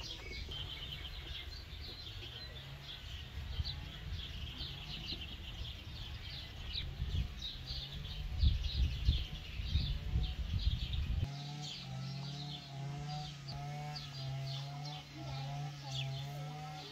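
Small birds chirping and singing continuously in a garden, over a low rumble. About eleven seconds in, the rumble stops abruptly and a low droning tone that pulses about once a second takes its place.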